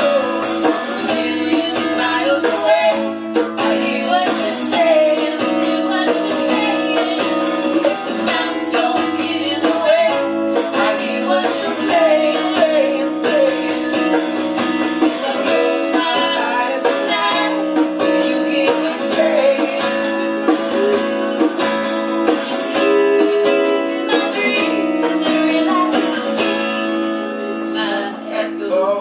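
Live acoustic duet: strummed acoustic guitar and hand drums under female and male voices singing without clear words, the melody wavering over steady chords.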